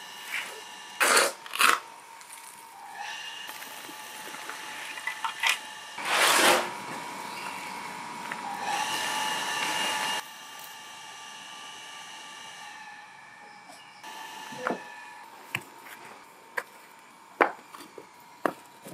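A metal shovel scraping and scooping ash out of a brick pit oven, with a few loud knocks. Near the end come quick sharp clacks of bricks being moved by hand.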